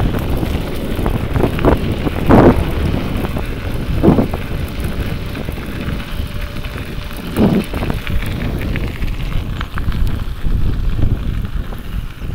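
Wind buffeting the microphone: a steady low rumble with several short, louder gusts.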